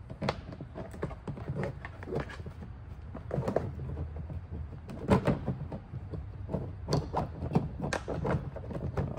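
Irregular clicks, knocks and scrapes of hard plastic parts being handled as a servo head-turner motor with its mounting flange is pushed and twisted into the hole of a hollow plastic skeleton head, a little louder from about halfway in.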